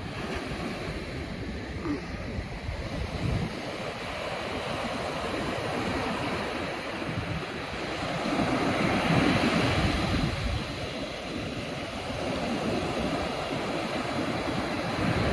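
Ocean waves washing on a beach, with wind buffeting the microphone; the surf swells louder twice, about eight seconds in and again near the end.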